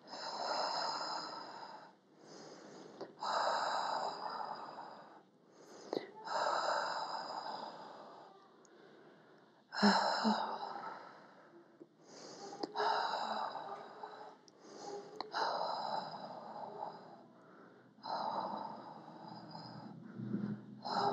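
A woman breathing slowly and deeply close to a clip-on microphone: long breaths in through the nose and out through pursed lips, about eight in a row, each one to two and a half seconds long, with short pauses between.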